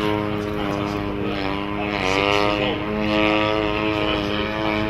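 Radio-control aerobatic model plane's engine and propeller in flight, a steady buzzing note that drops briefly about two seconds in and climbs back up as the throttle is worked through the manoeuvres.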